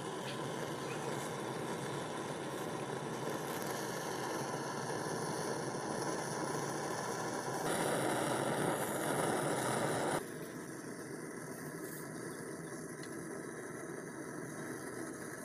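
A steady mechanical running noise, like an engine idling. It gets louder for about two and a half seconds around the middle, then drops back suddenly.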